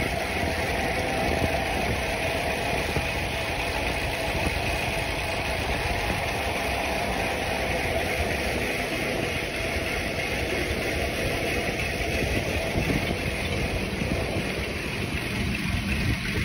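Steady rush of wind over a phone microphone mixed with tyre rumble as a Trek 4300 mountain bike rolls fast over concrete.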